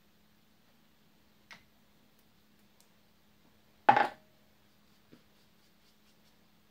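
Makeup products being handled on a table: a faint click, then a short, loud knock about four seconds in, and a small click a second later.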